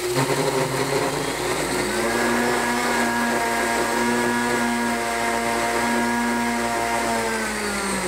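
Countertop blender running on rolled oats, grinding them into oat flour. The motor hum steps up to a higher speed about two seconds in, holds a steady whine, then winds down near the end.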